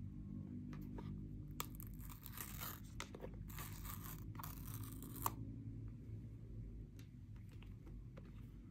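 Product packaging being torn open by hand: two tearing strokes of a second or so each, the second ending in a sharp snap, with a few small handling ticks around them.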